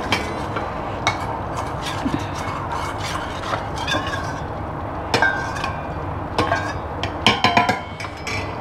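Metal spoon stirring a cornflour and water slurry in a stainless steel bowl, with irregular clinks and scrapes of the spoon against the bowl, a cluster of them about seven seconds in.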